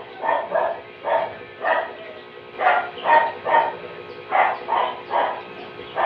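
A dog barking repeatedly in short barks, grouped in twos and threes, over a faint steady hum.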